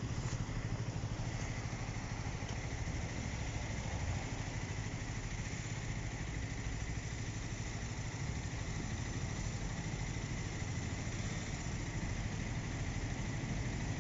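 Engines idling with a steady low rumble, and a faint steady high tone over it.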